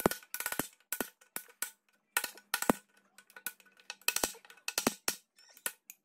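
Hammer striking the metal deck of a Bird 3 electric scooter's battery housing: a quick, irregular run of sharp metallic knocks, each with a short ring. The blows are knocking pre-cut tabs out of the housing to make room for a controller.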